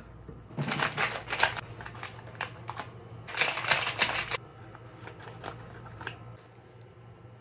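Crinkly rustling of disposable plastic gloves and a powder packet being handled, in two bursts, then a few light snips as scissors cut the packet open near the end.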